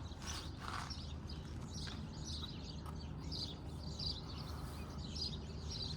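Birds chirping intermittently over a low, steady hum.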